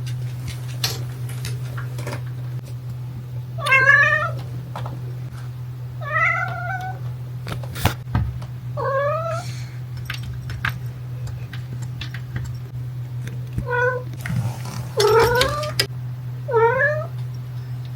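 A young black cat meowing repeatedly while at play: about six drawn-out meows a few seconds apart, each wavering in pitch. Short clicks and knocks fall between them over a steady low hum.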